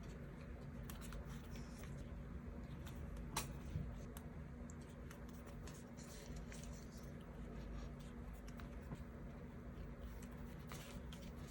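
Paper kiss-cut stickers being peeled off their sheet and pressed onto a diary page: faint paper rustles and small ticks, with one sharper click about three and a half seconds in, over a low steady hum.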